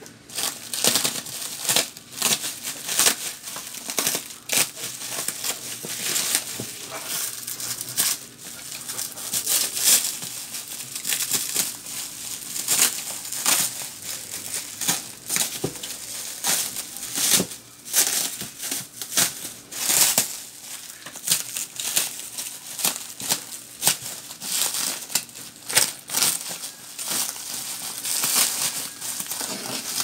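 Bubble wrap and plastic packing film crinkling and crackling as they are handled and pulled off a cardboard parcel, in dense, irregular bursts of sharp crackles.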